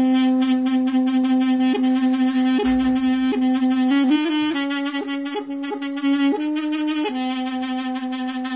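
Mey, the Turkish double-reed wooden pipe, playing a slow melody. It holds one long low note for about four seconds, broken by brief grace-note flicks, then moves between neighbouring notes in an ornamented phrase.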